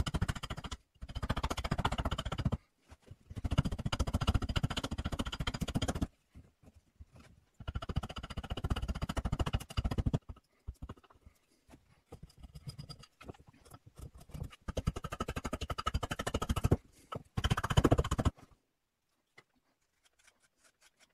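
Carving axe hewing a birch spoon blank on a chopping block: runs of rapid blade strikes into the wood, broken by short pauses. Near silence for the last couple of seconds.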